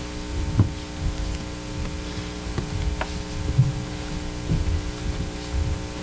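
Steady electrical mains hum, with a low rumble and a few scattered soft thumps and clicks.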